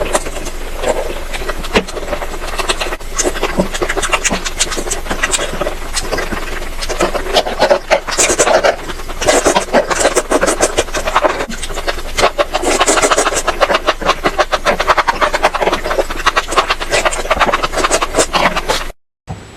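Close-miked chewing and crunching of food, a dense run of crisp crackles and clicks in uneven clusters, cutting off abruptly near the end.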